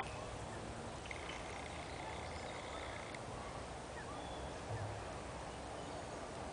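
Steady outdoor background hiss. A thin high tone rises out of it about a second in and lasts roughly two seconds, and there is a soft low thump near five seconds.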